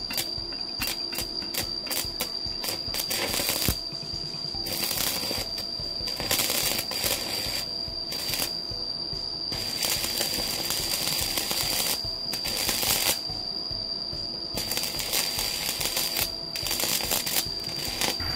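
Stick-welding arc from a Jasic two-function inverter welder running a 3.2 mm electrode at about 200 A, crackling and sputtering in irregular bursts over a steady high-pitched whine. The arc is not running smoothly: the rod keeps sticking, which the welder finds disappointing in this machine's arc-welding mode.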